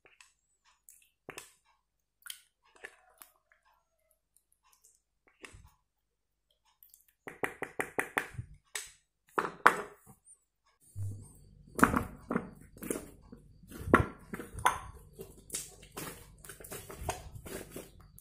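Thick white slime being worked: a plastic spatula stirring it in a bowl, then hands squeezing and kneading it, giving sticky clicks and squelches. Only a few faint clicks at first, then quick dense runs of them from about a third of the way in, busiest in the second half.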